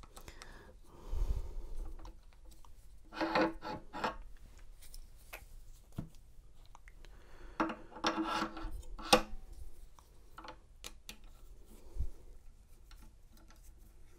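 Metal clamp of a Condor Dolphin XP-005 key-cutting machine being unscrewed with a screwdriver, lifted off and swapped for another clamp: bursts of metal scraping and clinking, with a sharp click about nine seconds in and a dull knock near the end.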